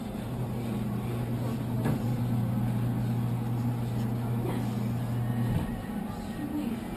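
Claw machine's gantry motor humming steadily as the claw carries a plush owl it has grabbed back toward the prize chute. The motor stops about five and a half seconds in, over a fainter steady electrical hum from the machine.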